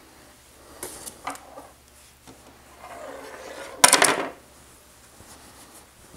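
Cloth reptile bags being handled and pulled open: soft fabric rustling and rubbing. A louder, brief rub comes just before four seconds in, as the cloth brushes over the microphone.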